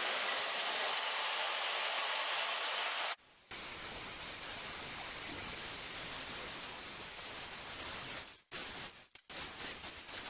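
Plasma cutter hissing steadily as it cuts a steel frame piece, breaking off briefly about three seconds in and twice near the end.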